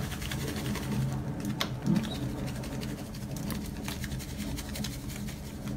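Steady low mechanical hum in the room, with a few faint scattered clicks and rustles as dried garlic flakes are shaken from a plastic bag onto a raw turkey in a foil pan.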